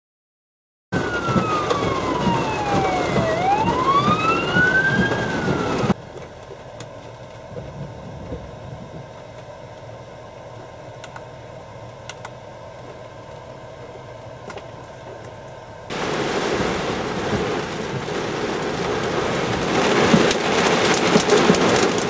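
A siren wailing, starting about a second in, its pitch sliding down and then back up for about five seconds. A quieter stretch of faint steady hum follows, and then the rush of heavy rain, which starts suddenly and grows louder toward the end.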